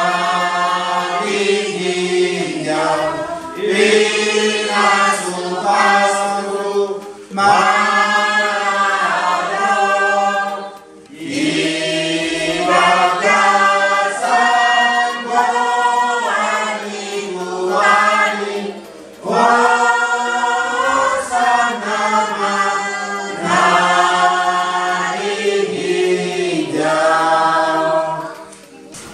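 A church congregation singing a hymn together without accompaniment, in sung phrases with short breath pauses between lines; the singing ends near the end.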